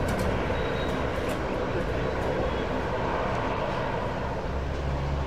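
Steady drone of a Lockheed C-130H Hercules's four turboprop engines idling with propellers turning, heard from a distance through outdoor background noise. A deeper low hum builds about four and a half seconds in.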